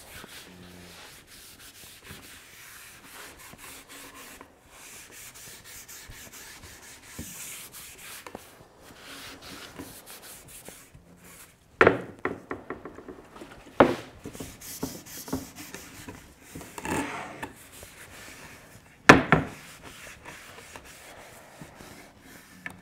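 A wooden door frame being rubbed over by hand, a soft scrubbing, with a few sharp knocks about halfway through and again near the end.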